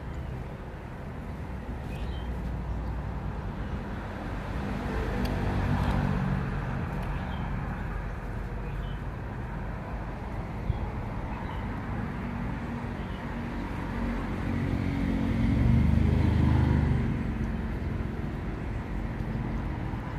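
Background traffic: a steady low rumble of road vehicles, with passing engines swelling and fading about 6 seconds in and again around 16 seconds in.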